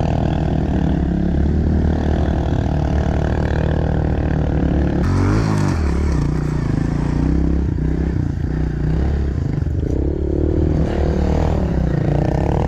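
Pit bike engine running hard under throttle, its pitch rising and falling as it revs. The sound changes abruptly about five seconds in.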